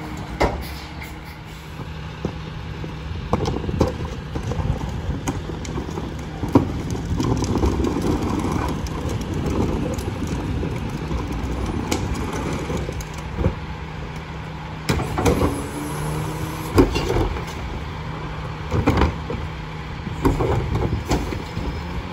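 Freightliner Econic McNeilus rear-loader garbage truck running at the curb with a steady engine hum. Repeated knocks and bangs come from the rear as trash goes in, and the engine revs up twice, once past the middle and again near the end.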